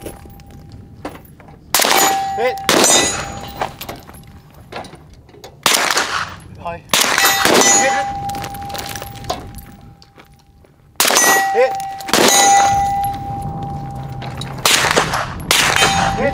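Rifle shots fired one at a time, a second or several seconds apart, about eight or nine in all. Each is followed by a hit steel target ringing with a steady tone that lingers for a second or more.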